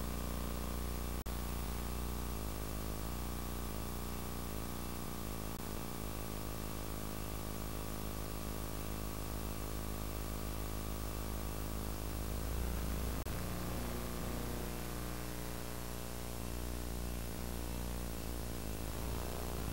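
Steady tape hiss with a low electrical hum from a VHS cassette playing a stretch with no soundtrack. There is a faint click about a second in and another about thirteen seconds in.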